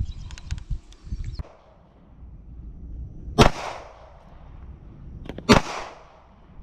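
Gun fired twice at a target, single loud cracks about two seconds apart, each with a short echoing tail.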